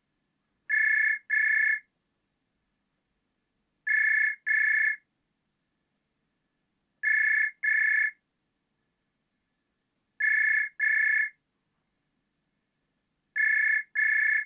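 Telephone ringing in a repeated double-ring pattern: two short rings close together, then a pause of about two seconds, five times over.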